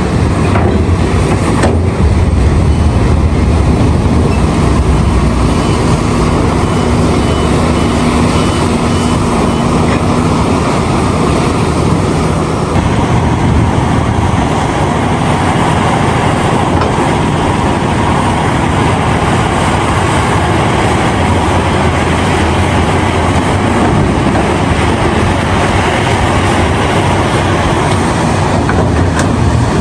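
Caterpillar 352F hydraulic excavator's diesel engine running steadily under load as it digs ore and loads a dump truck, a loud continuous machine drone.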